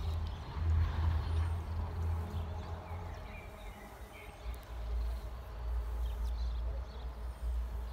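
Wind rumbling on the microphone outdoors, with a few short bird chirps.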